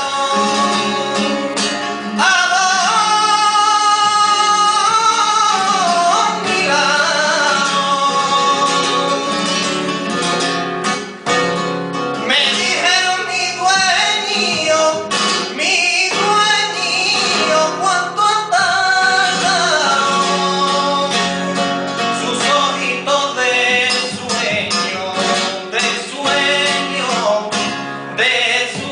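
A male flamenco cantaor sings long, wavering melismatic lines, accompanied by flamenco guitar. Near the end the guitar's plucked strokes come more to the fore.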